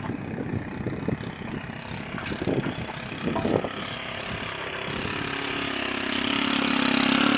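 Small petrol engine of a long-shaft garden cutter running, with a steady engine note coming in about five seconds in and growing louder toward the end.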